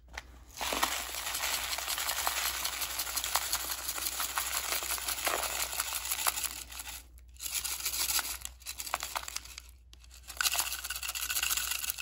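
Dry debris of rice, crushed cereal flakes and jelly beans pouring and being shaken out of a robot vacuum's plastic dustbin onto a paper plate, a dense rattling patter of small grains. It comes in three bouts, with short pauses about seven and ten seconds in.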